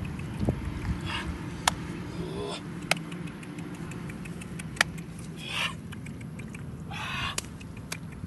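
Short splashes of fish thrashing in a shallow muddy puddle, with a few sharp clicks, over a steady low hum.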